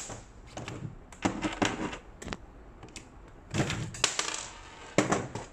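Pliers working a pin out of a Lehui Kriss Vector V2 gel blaster's plastic receiver: about five short bouts of clicking, scraping and rattling of metal tool on plastic.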